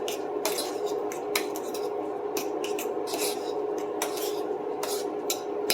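Mashed potatoes being stirred in a pot: a utensil scrapes and rubs against the pot over and over, over a steady hum that stops near the end.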